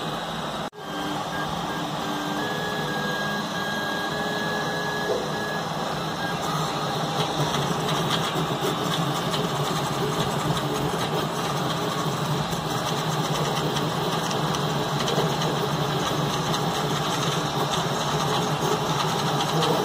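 DIY 3D printer running a print: its stepper motors whine in short tones that shift in pitch as the print head moves, over a steady mechanical whir. The sound drops out very briefly about a second in.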